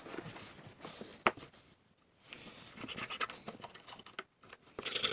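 Scratching and rubbing of hands working on an old Ensign Ful-Vue box camera, with one sharp click about a second in.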